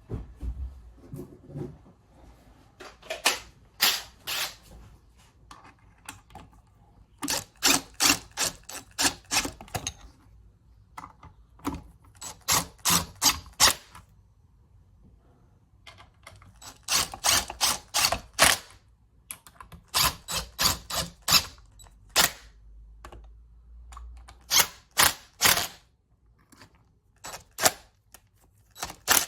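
Hand ratchet wrench clicking in short runs of sharp clicks, about four a second, with pauses between runs: the cylinder head bolts of a Honda GX200-clone engine being run down lightly before final torquing.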